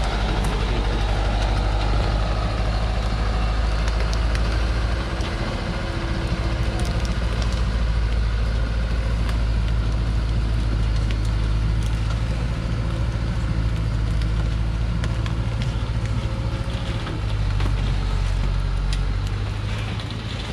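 Diesel engine of a truck loaded with acacia logs, running steadily under load as it crawls over cut branches, easing off briefly about five seconds in and again near the end. Scattered sharp cracks of branches breaking under the tyres.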